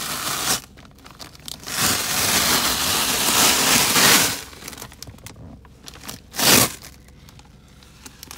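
Thin clear plastic floor-protection sheet crinkling and rustling as it is pulled up off the car's carpet and crumpled by hand. It comes in spells: a short one at the start, a long loud one from about two to four seconds in, and a brief one past six seconds.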